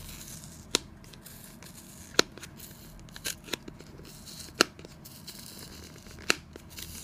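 A thumbnail picking at and tearing the paper seal sticker on a cardboard retail box: soft scratching and tearing, broken by about six sharp clicks, the loudest about two seconds in.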